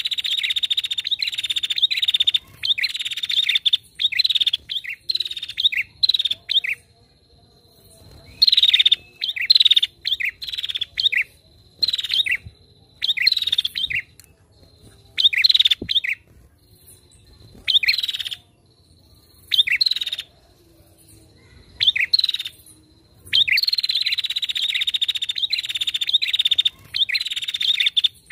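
Female prenjak (prinia) calling in bursts of rapid, sharp, repeated chattering notes, with pauses of a second or two between bursts; the longest bursts come at the start and again near the end.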